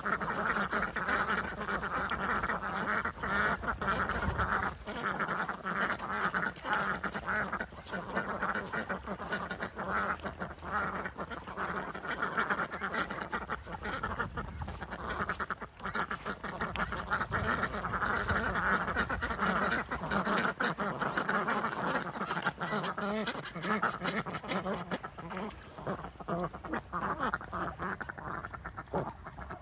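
A flock of domestic ducks keeps up a constant low quacking and clucking chatter, many calls overlapping, which their keeper takes for the clucking of happy excitement. The chatter thins out near the end.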